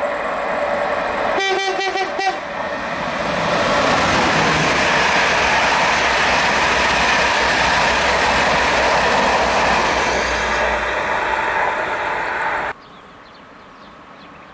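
A Pendolino high-speed electric train sounds a short horn blast about a second and a half in, then passes close by with a loud, steady rush of wheels and air. The sound cuts off suddenly near the end.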